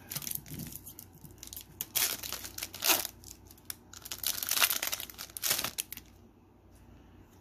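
A foil Pokémon Shining Fates booster pack wrapper being torn open and crinkled: a run of sharp tearing and crinkling noises that stops about six seconds in.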